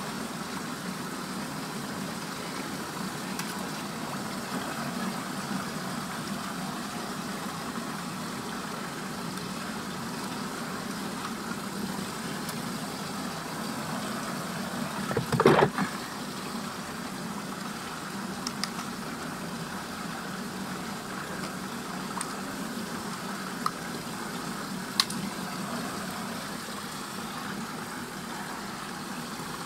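Steady rushing of water swirling down a whirlpool drain hole. About halfway through there is a brief louder surge as a small toy piece is pulled down the vortex, and near the end come a couple of sharp clicks.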